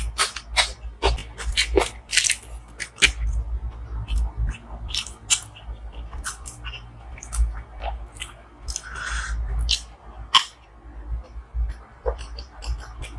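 Close-miked chewing of butter chicken and paratha, with many sharp, irregular wet mouth clicks and smacks.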